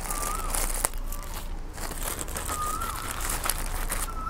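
Plastic courier mailer crinkling and rustling as it is cut with scissors and pulled open, with a sharp click about a second in. A short whistled call, rising then falling, sounds three times in the background.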